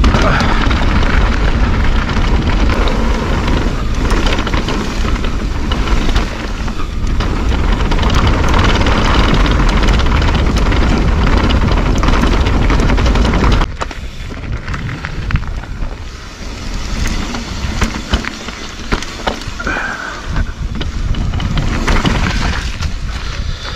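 Mountain bike descending a rough dirt trail, heard from a bike- or helmet-mounted camera: wind buffeting the microphone over the clatter of tyres and frame on dirt and rocks. The wind rumble drops off suddenly about halfway through, leaving a quieter rattle as the pace eases.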